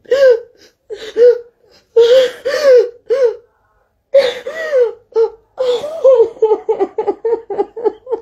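A woman sobbing: long wavering wails broken by gasping breaths, turning near the end into a quick run of short sobs, about four a second.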